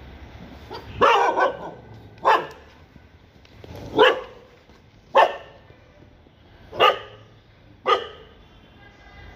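A dog barking: seven short, sharp barks, the first two in quick succession about a second in, then single barks spaced a second or so apart.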